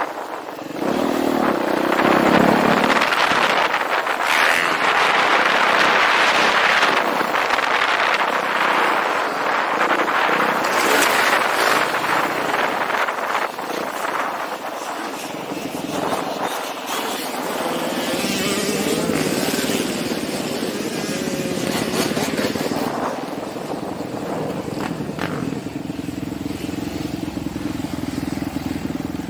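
Dirt bike engine revving hard with rising and falling pitch as it is ridden around a motocross track. Over the last few seconds it settles to a steadier, lower running note as the bike slows.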